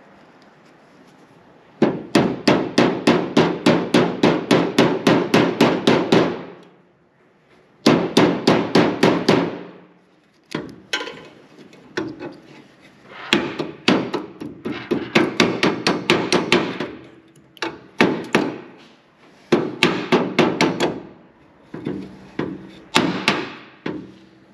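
Hand hammer striking in quick, even runs of about four to five blows a second, each run lasting a few seconds with short pauses between.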